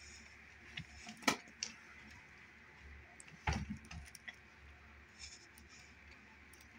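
A few soft knocks and light rustles over a faint steady hiss, the loudest knocks about a second in and at about three and a half seconds.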